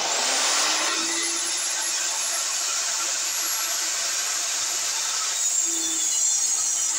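Sliding-table saw running with a loud, steady sound while its blade cuts through a particleboard panel.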